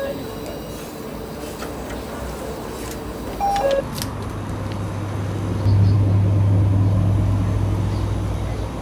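A short electronic two-tone beep that falls in pitch, over steady background noise. A low steady hum comes in about four seconds in and grows louder a couple of seconds later.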